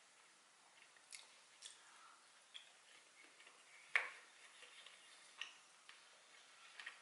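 Quiet eating sounds: soft chewing with scattered small clicks of a wooden spoon scooping in a bowl, the sharpest click about four seconds in.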